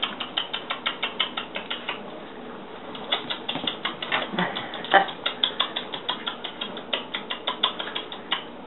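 Yorkshire terrier puppies' claws clicking and pattering on a hard tile floor as they scamper, a quick uneven run of taps that pauses briefly about two seconds in. There is one louder knock about five seconds in.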